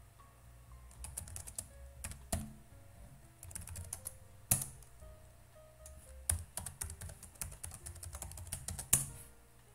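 Typing on a computer keyboard: runs of quick keystrokes in several spurts, with two louder single key strikes about four and a half seconds in and near the end.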